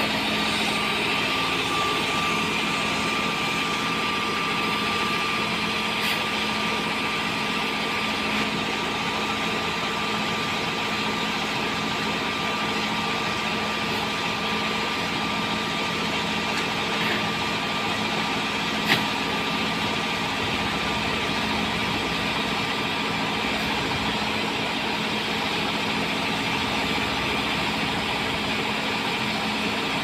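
Heavy diesel engines running steadily, from the Lovol backhoe loader and the dump truck as its bed is hoisted up to unload the backhoe. There is a single short knock about nineteen seconds in.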